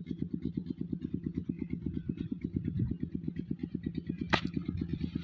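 A small engine running steadily with a fast, even putter of about eleven beats a second. A sharp click comes a little over four seconds in.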